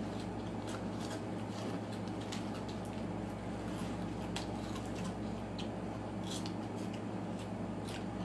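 Snack packets crinkling in hands and snacks being crunched and chewed, scattered irregular crackles over a steady low hum in the room.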